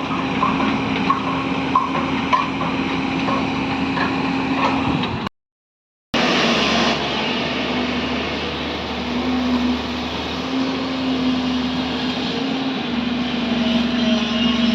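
A motor running with a steady hum and a click repeating about every half second. About five seconds in it breaks off into silence for under a second, then a motor hum returns, noisier and wavering in pitch.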